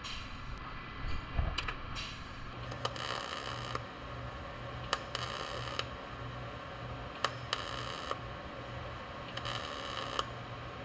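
MIG welder laying short tack welds on a car's rocker panel butt joint: about four brief sizzling bursts, each under a second, over a low electrical hum, with a few sharp clicks in between.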